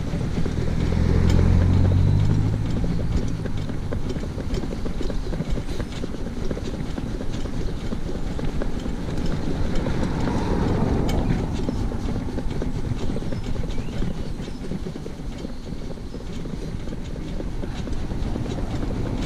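Shetland pony's hooves clip-clopping on a tarmac road as it pulls a light cart, with the cart's wheels and harness clattering along. A car passes about a second in, and another around ten seconds in.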